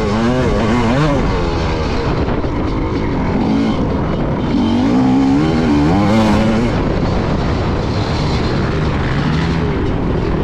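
Onboard sound of a motocross bike's engine, its pitch rising and falling again and again as the throttle is opened and shut, over a steady rush of noise.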